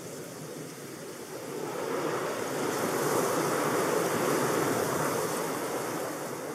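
A rushing noise, like wind or surf but with no pitch to it, swells up about two seconds in, holds, and fades away toward the end.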